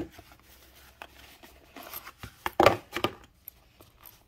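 Hands lifting a zippered felt knife pouch out of its cardboard box: rustling, soft scrapes and light clicks, with the loudest rustle about two and a half seconds in.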